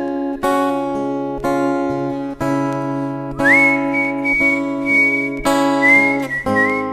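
Instrumental break of an acoustic ballad: chords strummed on an acoustic guitar, about one a second, under a whistled melody that slides up into a long held note about halfway through.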